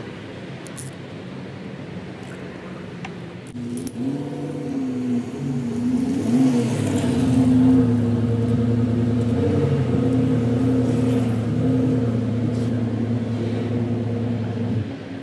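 A few light handling knocks, then an engine starts running about three and a half seconds in, its pitch wavering briefly before settling into a steady drone, and shuts off just before the end.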